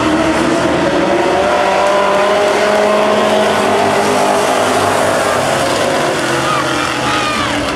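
A pack of street stock race cars running around a dirt oval, several engines overlapping, their pitch drifting slowly up and down as the cars pass.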